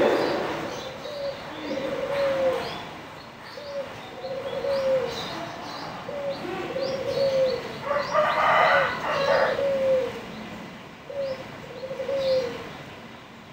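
A dove cooing over and over, short low coos about once a second, with small birds chirping high above it. About eight seconds in, a rough noisy sound lasts a second or so.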